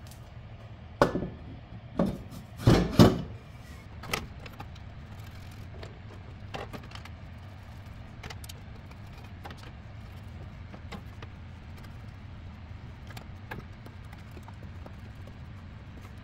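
A few heavy clunks and knocks in the first few seconds as the drill press head is set onto its steel column, then scattered light clicks and taps of parts being handled, over a steady low hum.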